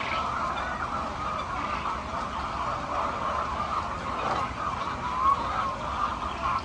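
Many hens clucking and calling together in a chicken coop, a steady dense chorus of short, wavering calls.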